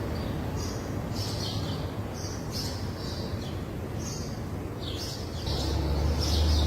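Small birds chirping repeatedly in short high notes, many falling in pitch. A steady low hum comes in and grows louder about five and a half seconds in.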